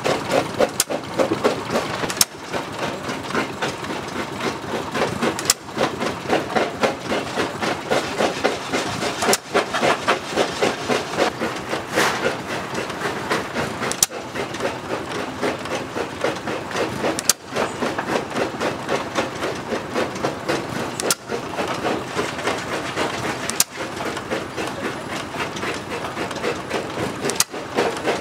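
Old stationary engines running with a fast, even chuffing and mechanical clatter. Sharp clicks and short breaks come every few seconds, where the running sound changes.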